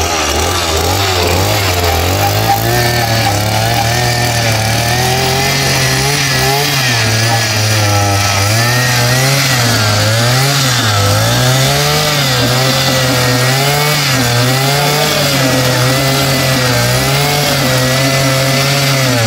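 Two-stroke gasoline earth auger running under load as it bores into hard, dry soil. Its engine speed falls and recovers again and again as the bit bites into the ground.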